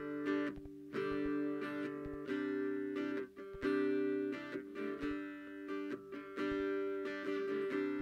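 Background music: a guitar playing plucked notes and chords.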